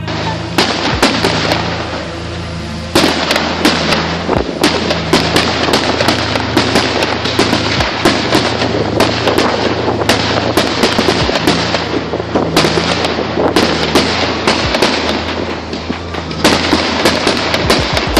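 Fireworks going off: a dense, continuous crackle of sharp pops and bangs that gets louder about three seconds in.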